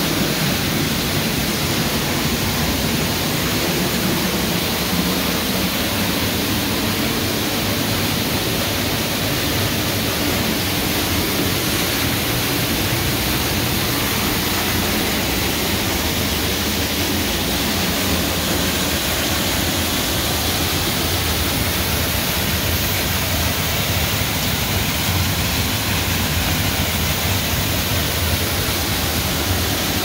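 Waterfall: the steady rush of water pouring down and splashing onto rocks, unbroken and loud.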